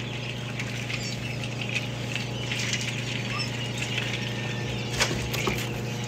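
Newly hatched quail chicks peeping and scrabbling in a hatcher tray over a steady low machine hum from the hatcher.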